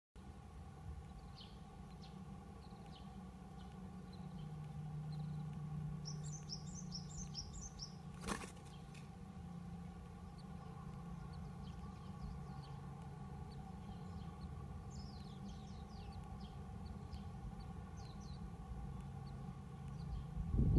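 Japanese tit giving faint, high, thin chirps, scattered through and in quick runs about six seconds and fifteen seconds in, over a steady low hum, with one sharp click about eight seconds in.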